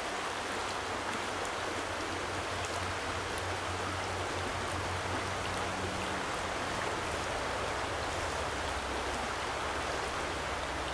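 Shallow, fast stream water running over rocks in a riffle: a steady rushing hiss.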